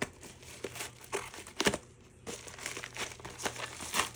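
Packaging crinkling and rustling in the hands as it is opened, in irregular crackles with one sharp loud crackle partway through and a short lull before it picks up again.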